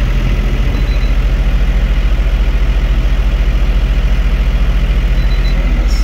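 New Holland 4835 tractor's diesel engine running steadily with an even pulse, heard from inside the cab, with the air-conditioning blower pushing air out of the roof vents.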